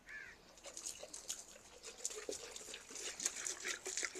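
Faint, irregular spattering of water thrown by hand from a plastic jug onto a dusty earthen courtyard floor, damping the dust before sweeping. A brief chirp sounds at the very start.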